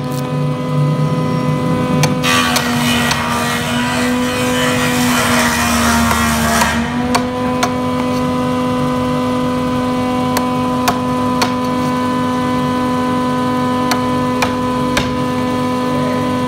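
Hammer blows driving a steel chisel into hardwood to chop out a mortise: sharp knocks coming in short irregular runs, over a steady droning hum.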